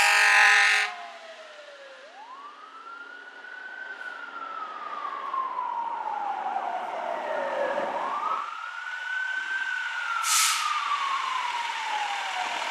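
Fire engine siren wailing as the rig pulls out, a mechanical siren that winds up quickly and coasts down slowly, twice, growing louder. It opens with a loud horn blast that cuts off about a second in, and a short hiss of air, like an air brake, comes about ten seconds in.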